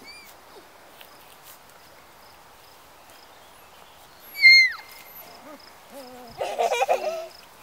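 Four-week-old golden retriever puppies vocalizing: one loud, high-pitched yelp that drops in pitch at its end about four and a half seconds in, then a harsher, lower run of squeals shortly before the end.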